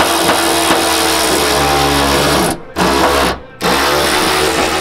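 Cordless power ratchet running steadily as it turns fasteners on a car's trunk lid. It cuts out briefly twice about two-thirds of the way through, then runs again.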